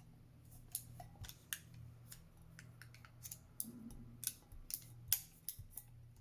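Irregular sharp clicks and crackles of transfer tape and a plastic card being pressed and rubbed onto a cup while a vinyl decal is applied, over a steady low hum.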